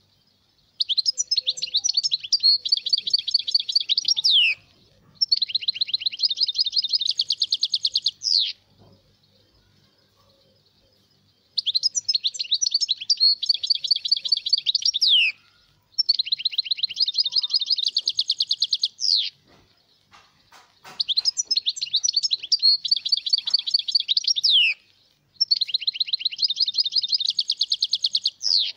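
European goldfinch singing: six phrases of rapid, evenly repeated high notes, each a few seconds long and ending in a quick downward slide, with short pauses between.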